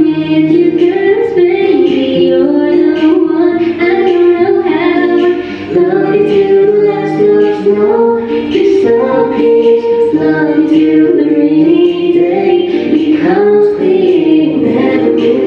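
A female and a male voice singing a Mandarin pop love song as a duet over backing music, the female voice most prominent.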